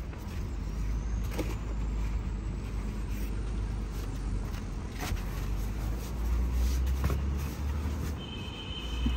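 Light knocks and rustles from quilted fabric trunk mats being handled and laid in a car's cargo area, over a steady low rumble. Near the end a steady high tone comes in.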